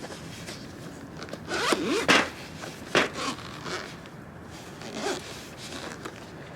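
A zipper pulled in a few short rasping strokes, the longest and loudest about two seconds in, with shorter pulls around three and five seconds in.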